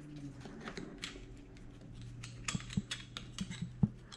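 Scattered light clicks and taps of a cargo net's nylon strap and its buckle hardware being worked by hand against a Jeep's roll bar. They come more often in the second half, with a sharper knock just before the end.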